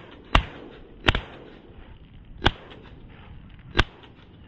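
Four loud shotgun shots, roughly a second apart, each with a short echo tail.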